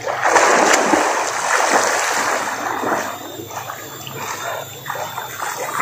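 Water splashing as swimmers move through a river, loudest over the first two seconds or so, then dying down to lighter splashes.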